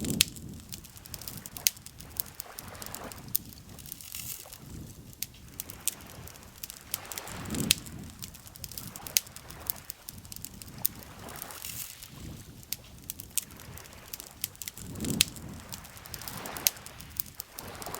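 Wood campfire crackling with frequent sharp pops, over gentle lapping of lake water that swells every several seconds.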